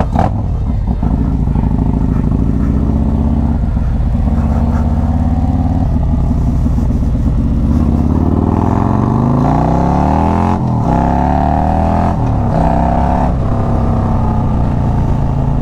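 Harley-Davidson bagger's V-twin engine under way, running steadily at first, then accelerating from about halfway in, with the pitch climbing and dropping back at two upshifts.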